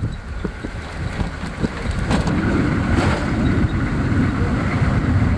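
A vehicle driving along a rough country road: a low engine and tyre rumble with wind noise on the microphone, a few bumps in the first two seconds, and the rumble growing louder about two seconds in.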